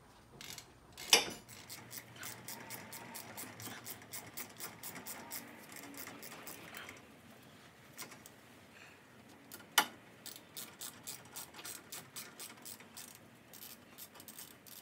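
Ratchet wrench clicking in quick runs as the brake caliper bolts are run in, with a loud sharp knock about a second in and another about ten seconds in.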